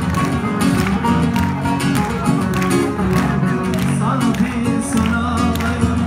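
Loud music with a steady beat, sharp strikes about twice a second over sustained notes.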